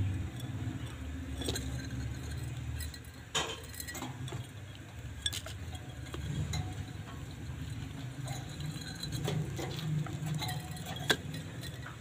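Budgerigars pecking at boiled rice in a clay dish and a metal tray, giving scattered sharp clicks of beak on dish, the loudest near the end, over a low steady rumble.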